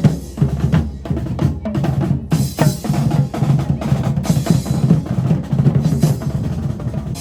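Live drum troupe playing a fast, driving rhythm of dense, rapid strokes on deep drums, with a brighter, hissier layer joining from a couple of seconds in.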